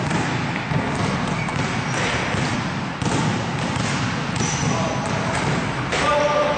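Basketballs bouncing on a gym floor amid the busy sound of a practice: running players and indistinct voices in a large sports hall, with a short pitched squeak or call near the end.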